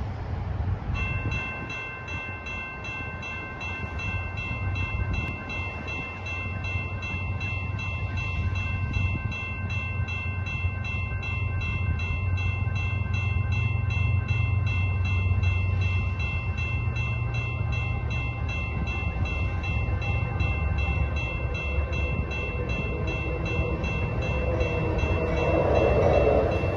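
GE ES44AC diesel-electric locomotive approaching with a low engine rumble that grows louder, over a steady high ringing with quick regular strikes, several a second, which stops a few seconds before the end.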